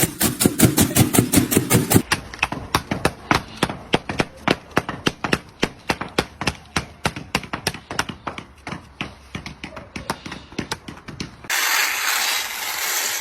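A rapid run of sharp taps or clicks, about five a second, changing character about two seconds in. Near the end it gives way to a steady hiss.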